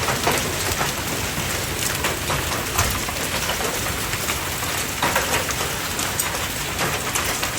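Hailstones about an inch across pelting a house roof and metal gutters: a dense, steady clatter with many sharper single hits standing out.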